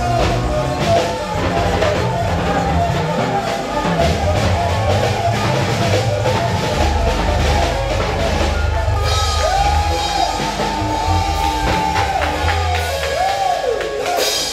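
Live church praise music: a voice singing a bending melody over a drum kit and a deep, steady bass.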